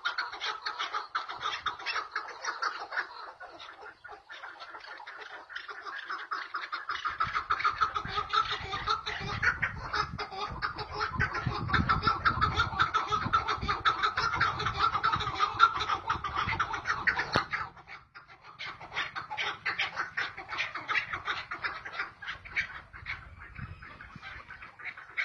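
Chukar partridges calling against one another in a calling contest: a dense, rapid run of repeated clucking 'chuck' notes from several birds, building to its loudest in the middle and dropping off briefly about two-thirds of the way through before picking up again.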